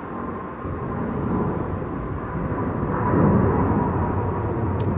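Jet engines of a large twin-engine widebody airliner climbing out after takeoff: a broad engine rumble that builds over the first three seconds and stays loud, with a faint steady whine running through it.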